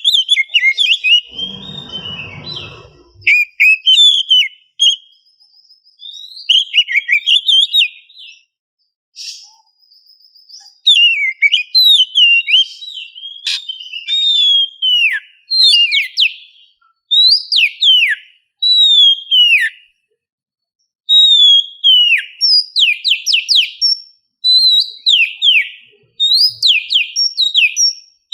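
Oriental magpie-robin (kacer) singing: bursts of loud whistled phrases and quick falling notes, separated by short pauses. A brief low noise sounds under the song about two seconds in.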